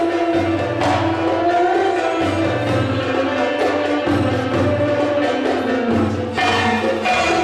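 Arabic dance music played live by a small ensemble: a gliding accordion and violin melody over a steady low pulse and hand-drum strokes.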